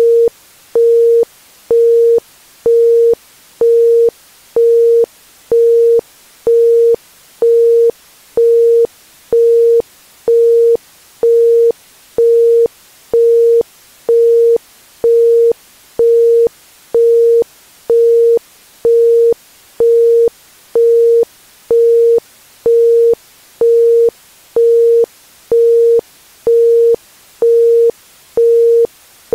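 Isochronic tone: a pure 465 Hz tone switched on and off at an even rate of about once a second (1.05 Hz), with a faint hiss of background noise between the pulses.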